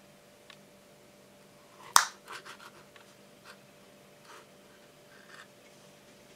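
A single sharp finger snap about two seconds in, followed by a few faint clicks and taps as the small glitter-covered tube prop is handled and changed into a little house.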